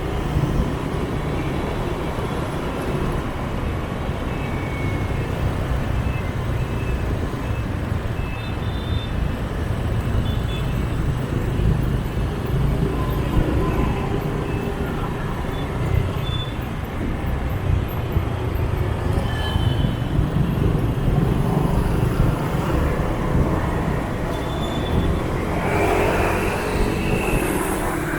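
City street traffic heard from a moving motorbike: a steady mix of scooter engines and road noise, with a louder stretch near the end.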